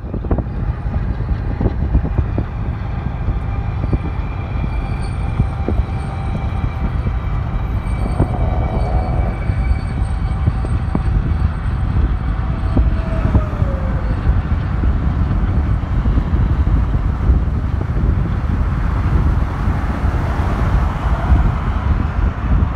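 Norfolk Southern diesel locomotives leading a double-stack intermodal train past at a distance: a steady rumble of engines and rolling cars, with wind buffeting the microphone.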